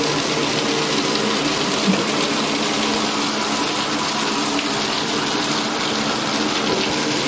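Hand-held shower head running, water spraying steadily into a shower tray, turned on to test that the drain runs free.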